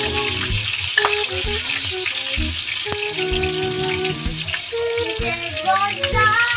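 Chopped garlic and sliced onions sizzling in hot oil in a wok as the onions are added, under background music with a melody and bass.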